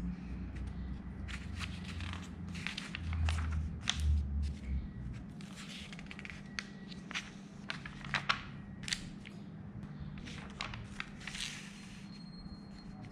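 Pages of a glossy paper magazine being turned and handled: scattered crackles and rustles of paper.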